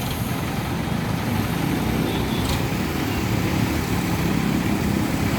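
Tractor diesel engine running steadily with a low rumble, and a light click about halfway through.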